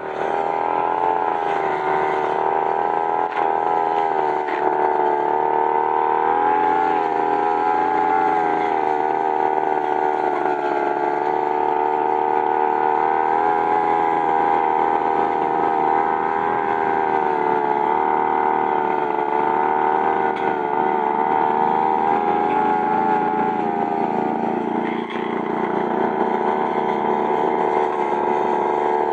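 Petrol brush cutter (shaft-type grass trimmer) running steadily while cutting grass, its engine note wavering slightly in pitch.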